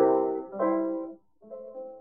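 Piano music: a chord struck at the start and a few more notes, a brief break a little past a second in, then softer notes resuming.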